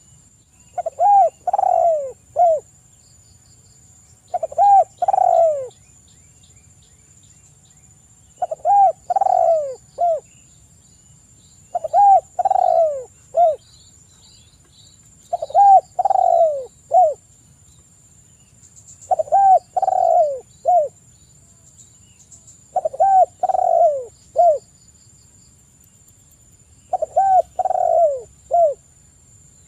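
Spotted dove (tekukur) cooing in its 'kuk 3' call type: eight phrases of three or four short falling coos, one about every three to four seconds, over a faint steady high-pitched hum.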